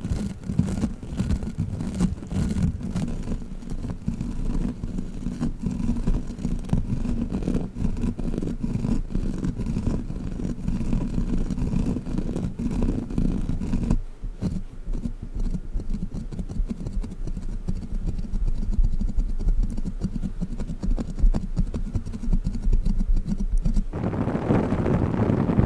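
A sticky wall-crawler toy handled close to the microphone: a dense, continuous run of tacky sticking and peeling with many small clicks. Near the end it gives way to a brighter handling sound of a different object.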